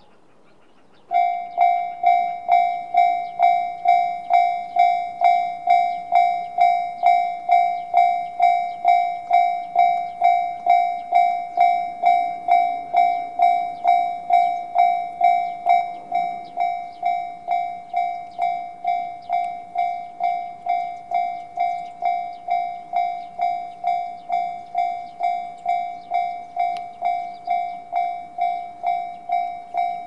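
Japanese level-crossing alarm with the JR standard electronic bell tone starting up about a second in: a single pitched ding repeating about twice a second, each one fading fast. It signals that a train is approaching and the crossing is closing; the ringing turns somewhat quieter about halfway through.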